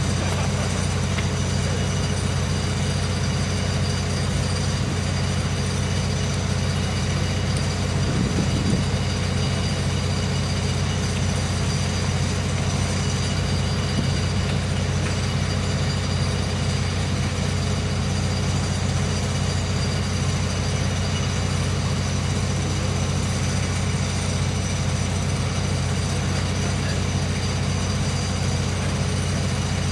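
Steady machinery drone with a constant low hum and thin high tones above it, unchanging throughout.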